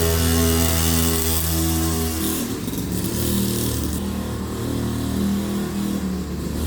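Trail motorcycle engine running with an odd, uneven note. Its steady pitch drops and changes character a little over two seconds in, then holds.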